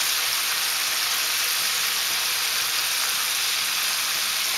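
Fish deep-frying in hot peanut oil in a fryer basket, a steady sizzling hiss.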